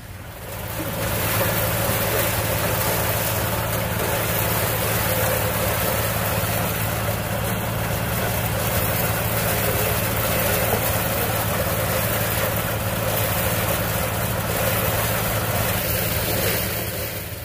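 An engine running steadily under a loud, even rushing noise. It fades in just after the start and fades out near the end.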